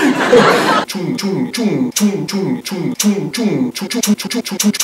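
A man's voice cut into a short fragment and looped over and over, about three times a second, each repeat falling in pitch, then quickening into a rapid stutter near the end. It opens with a loud hiss-like burst lasting just under a second.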